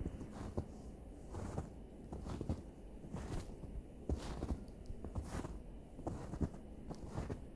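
Footsteps crunching in snow, a steady walking pace of about one step a second.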